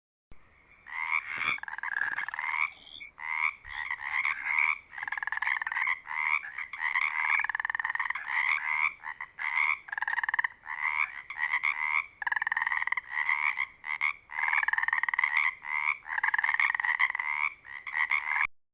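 Frogs croaking: short, rapidly pulsed calls repeated over and over with brief gaps, starting abruptly and cutting off abruptly.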